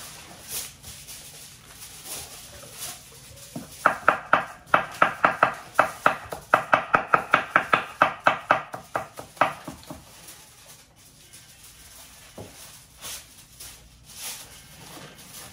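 Kitchen knife chopping fresh cilantro on a wooden cutting board: a fast, even run of strokes, about four a second, starting about four seconds in and lasting some six seconds, then a few scattered cuts.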